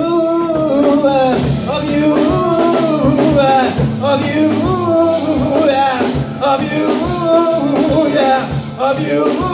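Live rock band playing: drum kit keeping a steady beat under electric guitar, bass guitar and keyboard, with a voice singing a melodic line over it.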